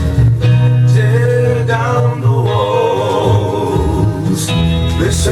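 Folk-gospel song recording: acoustic guitar accompaniment, with male voices singing long, wavering notes from about a second in.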